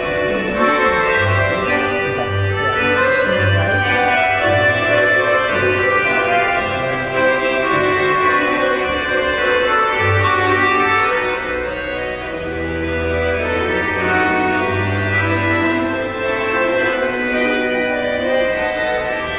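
Instrumental folk dance music: held, reedy or organ-like melody notes over a pulsing bass line.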